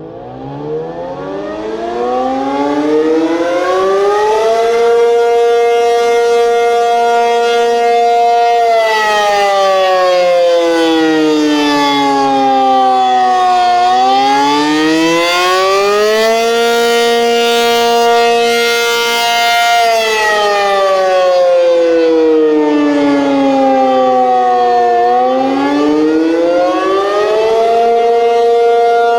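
Outdoor storm warning siren sounding its test signal. It winds up from a low pitch over the first few seconds to a loud, steady chord-like tone, then wails: twice the pitch slides down over about five seconds and climbs back up to hold high again.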